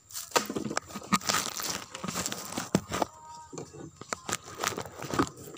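Irregular crunching, rustling and small knocks from oil palm fruit bunches and dry leaf litter being handled and stepped on.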